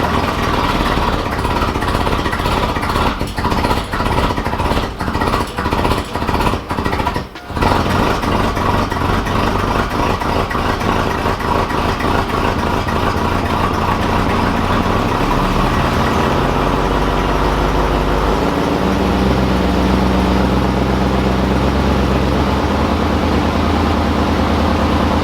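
305 Tuned Port Injection V8 of a 1991 Pontiac Firebird Formula idling rough, just started on a freshly installed distributor with the timing not yet set and the EST timing-advance connector unplugged. It stumbles and dips repeatedly for the first several seconds, then settles into a steadier idle whose note shifts twice later on.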